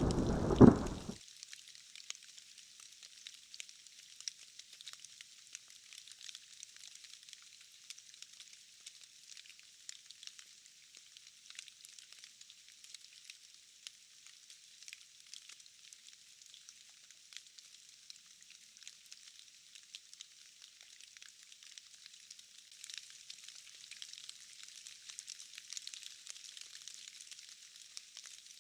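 Thunder rumbling over heavy rain cuts off abruptly about a second in. What remains is a faint, steady hiss of light rain with fine crackly patter, swelling slightly near the end.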